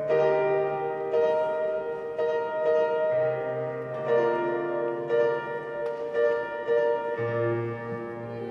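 Digital stage piano playing a slow classical passage of sustained chords, with a new chord or note struck about once a second.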